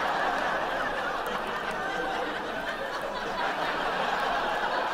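Laughter from many people at once, a sitcom studio audience, running steadily and easing off near the end.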